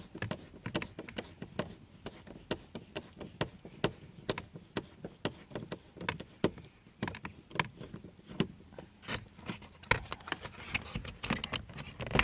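Irregular clicks and taps, a few each second, of a hand tool working a screw out of a car's interior door panel.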